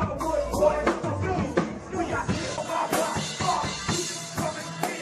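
Live rap performance over amplified music: a rapper's voice into a microphone over a backing track with a steady drum beat.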